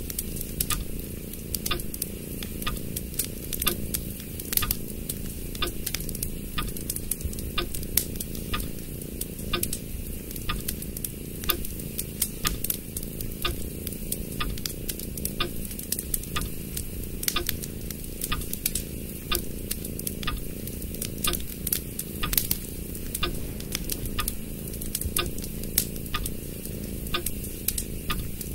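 Origami paper being handled and creased by hand close to the microphone: a steady run of irregular crackles and clicks.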